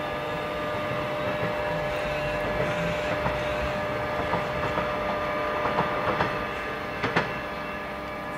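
Alstom X'trapolis 100 electric multiple unit pulling away, with a steady electric whine from its traction equipment. Its wheels click over the track through the middle and give one sharp, loud clack about seven seconds in.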